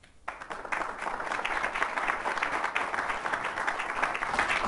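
Audience applauding, starting about a third of a second in and keeping up a steady patter of clapping.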